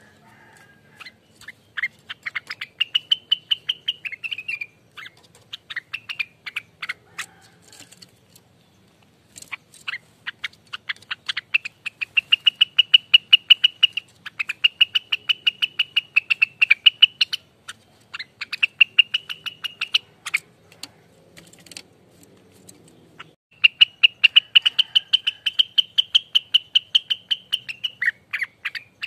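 Rengganis leafbird singing its rapid-fire 'ropelan' song: fast runs of sharp chattering notes merging into long high trills. The bird pauses twice.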